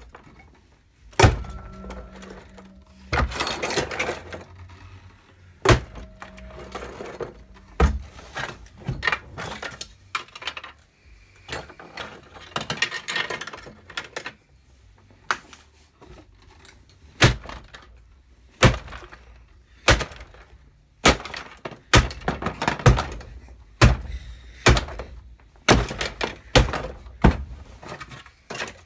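Plastic hand mixer being smashed by a heavy wooden beam, with a loud heavy blow about a second in, followed by a long series of sharp knocks, cracks and clatters as the broken plastic casing and metal parts are struck, handled and dropped.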